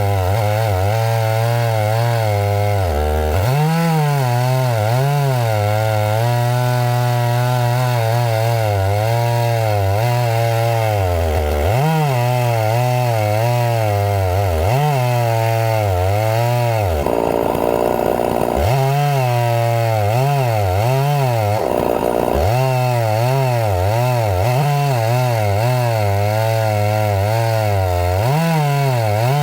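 Gas chainsaw cutting pine, its engine note repeatedly sagging and recovering as the chain bites under load. Twice in the second half it briefly revs up higher and free.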